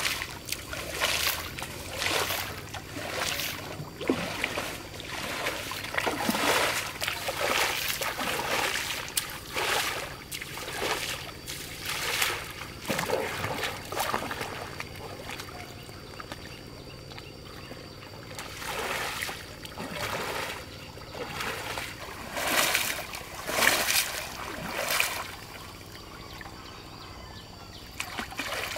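Water splashing and sloshing in irregular bursts about a second apart, with a stretch of fewer and softer splashes in the second half.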